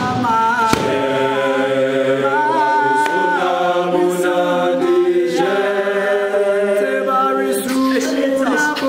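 Male group singing a cappella in gwijo style, the South African group-chant tradition: several voices hold harmonised chords that change every second or two, with no instruments.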